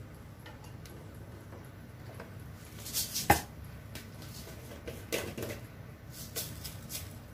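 Quiet kitchen handling sounds: a few light clicks and one sharp knock about three seconds in, as spice containers and utensils are handled.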